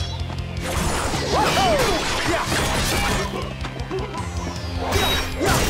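Action-score music with staged fight sound effects over it: weapon clashes and hits, with a sharp impact near the end.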